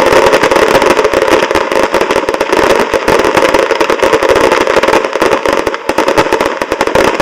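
Fireworks display at full barrage: many aerial shells bursting and crackling in rapid, overlapping succession, a dense unbroken run of bangs and crackle.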